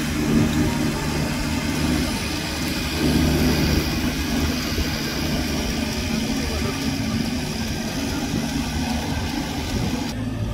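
Riding rice transplanter's engine running steadily as the machine drives through the flooded paddy planting seedlings.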